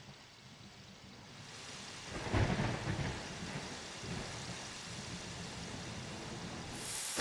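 Rain falling in a steady hiss, with a rumble of thunder a little over two seconds in. The rain swells louder just at the end.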